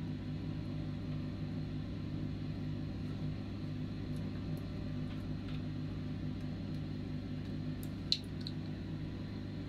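Steady low hum, with a few faint clicks and one sharper click about eight seconds in.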